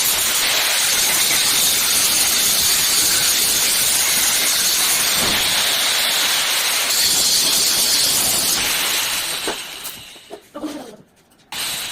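Angle grinder grinding welds on a steel cage: a loud, steady grinding hiss that winds down about nine seconds in, followed by a few short scraping sounds.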